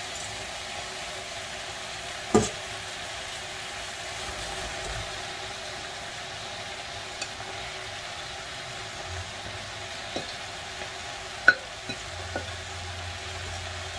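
Pot of meat and greens sizzling steadily on the stove, with frozen spinach and kale just added. A few light knocks of a utensil against the pot, the clearest about two seconds in and late on.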